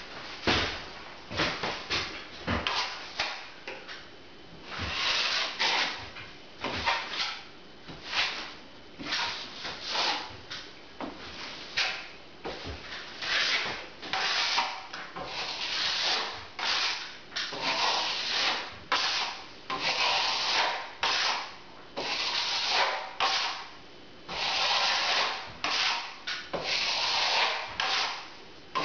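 Plastering trowel scraping wet plaster across a ceiling and against the hawk in repeated strokes, some short and some longer sweeps. It is skimming a low spot over a plaster-drywall join and feathering the edges out.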